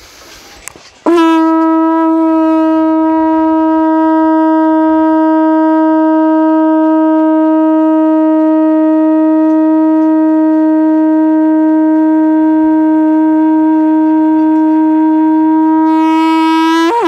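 Conch shell (shankh) blown in one long, loud, steady note lasting about sixteen seconds. It starts abruptly about a second in and dips in pitch as it cuts off at the end.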